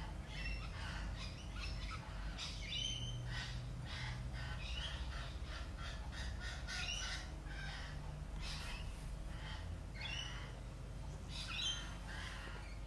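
Rainbow lorikeets chattering: many short, high-pitched squawks and chirps in quick succession, over a steady low hum.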